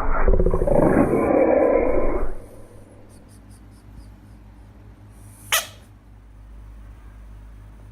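A frog's loud, rasping call lasting about two seconds, then a single sharp click about five and a half seconds in.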